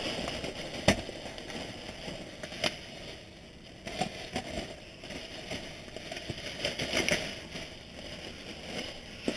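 Plastic bags and packaging crinkling and rustling as they are handled and pulled about, with irregular sharp crackles and clicks; the loudest is a sharp snap about a second in.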